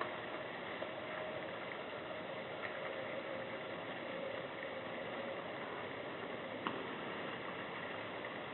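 Steady background hiss with a faint low hum, broken by a few soft clicks.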